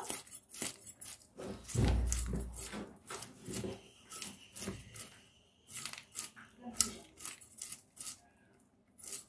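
Hilsa fish being scaled against the blade of a boti: a series of short, irregular rasping scrapes as the scales are scraped off, with a low thump about two seconds in.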